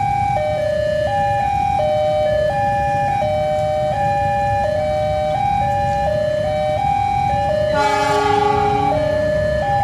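Railway level-crossing warning siren switching back and forth between a high and a low tone with an uneven, broken beat instead of a regular rhythm: the crossing alarm is out of rhythm. About eight seconds in, a train horn sounds for a little over a second over it, with a steady low rumble underneath.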